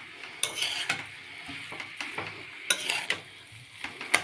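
A utensil stirring and scraping spiced potato-and-cauliflower samosa filling in a frying pan, with a few sharp scrapes and clinks against the pan over a faint steady sizzle.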